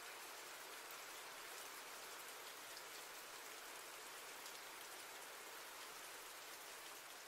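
Steady, faint rain: an even hiss of falling rain with scattered small drop ticks.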